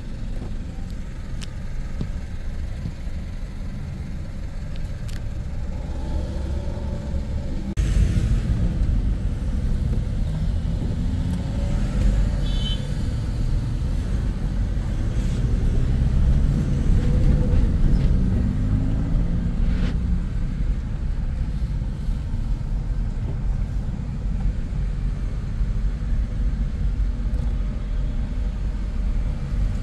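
Car engine and road noise heard from inside the cabin in city traffic: a steady low rumble that grows louder about eight seconds in as the car pulls away from the light, with the engine's pitch rising for a few seconds in the middle.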